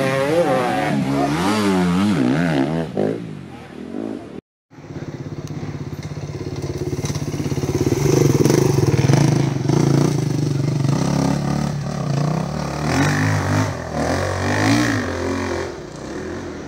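Enduro motorcycle engines revving up and down as the bikes ride past. About four and a half seconds in the sound cuts out briefly. Then another bike's engine comes in, loudest around eight to ten seconds in, with the revs rising and falling again near the end.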